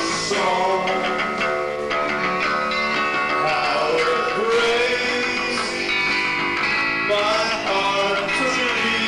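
A live rock band playing, with a male singer singing into a handheld microphone over the band.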